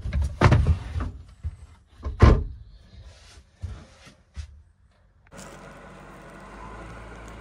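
A wooden lid covered in coir matting is set down and settled onto a box, giving a series of knocks and thuds, the loudest about two seconds in. A steady low hum starts about five seconds in.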